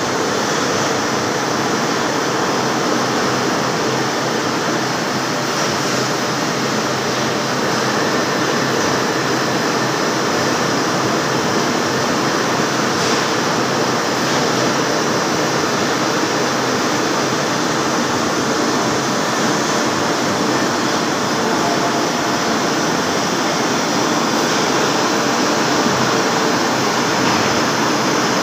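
Large CNC lathe turning a steel roll: steady noise of the running machine and the tool cutting, without breaks or changes.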